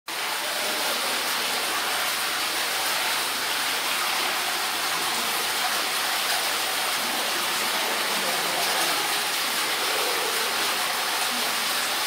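Steady, even rushing noise throughout, with no tapir call heard.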